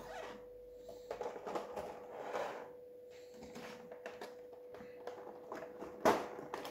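Handling noises of a board-game box and its plastic insert being moved: scattered rustles and light clicks, with a sharp knock about six seconds in, over a steady faint hum.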